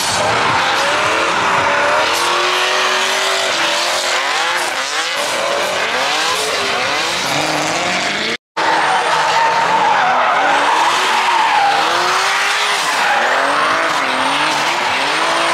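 Drift car engine revving up and down as the throttle is worked, with tires squealing and skidding. The sound drops out briefly a little past halfway, then carries on.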